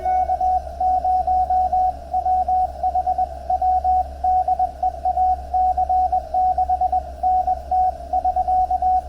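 Morse code (CW) audio from a Lab599 TX-500 transceiver on 20 meters: a single steady-pitched beep keyed in quick dots and dashes without a break, over a steady low hum.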